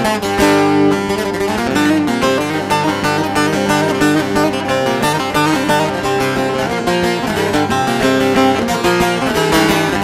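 Bağlama (long-necked Turkish saz) played with a plectrum: a lively instrumental tune of quick, fast-changing strummed and plucked notes.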